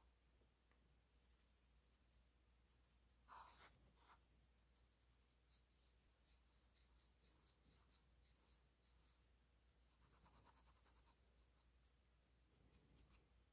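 Very faint scratching of a cotton bud rubbed back and forth over the metal wheels of an HO-scale model locomotive, polishing off old dirt, with a brief louder scrape about three and a half seconds in; otherwise near silence.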